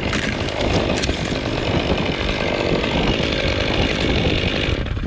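Chainsaw running steadily during tree work, dropping away shortly before the end.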